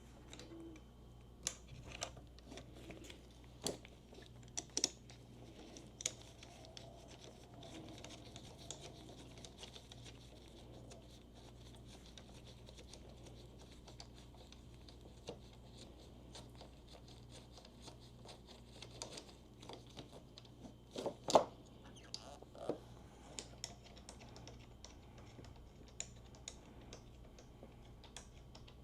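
Scattered light clicks, taps and scrapes of hands handling motorcycle parts and tools, with a louder knock about two-thirds of the way through.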